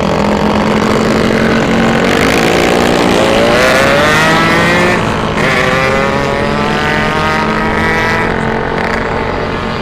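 Small motorcycle engines accelerating. The pitch climbs, drops briefly about halfway through, then climbs again, over steady wind rush on the microphone.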